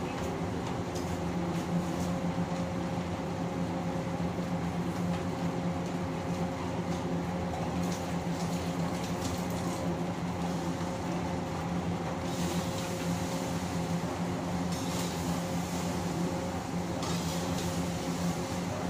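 Steady drone of a commercial kitchen exhaust hood fan, with a low hum and a faint higher tone held throughout. Short stretches of hiss come and go in the second half.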